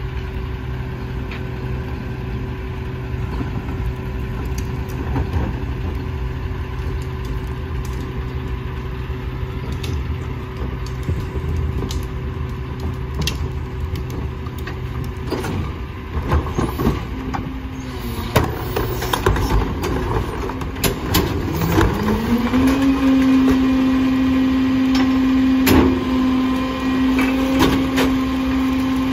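Rear-loading garbage truck's engine idling steadily, then clatter and knocks as a plastic recycling cart is wheeled up and hooked onto the hydraulic cart tipper. About three-quarters through, the engine note rises and holds higher and louder as the tipper lifts the cart, with a sharp bang of the cart against the hopper.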